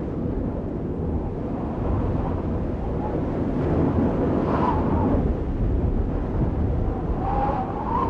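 Steady low rumbling noise, with faint tones swelling about halfway through and again near the end.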